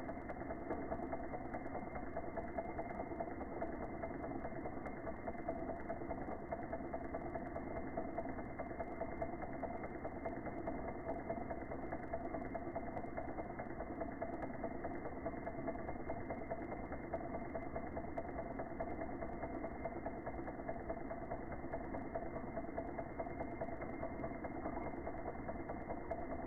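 Small twin-cylinder model Stirling engine running steadily on an alcohol burner: a continuous, even mechanical whirring of its pistons, flywheel and belt-driven little generator.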